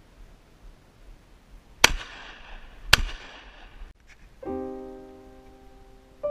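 Two shotgun shots about a second apart, each trailing off over the mountainside. Piano music then begins about halfway through.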